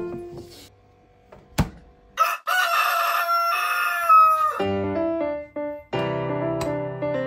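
A rooster crowing once, one long cock-a-doodle-doo of about two seconds, used as a sound effect for the next morning. Keyboard background music fades out at the start and starts again after the crow.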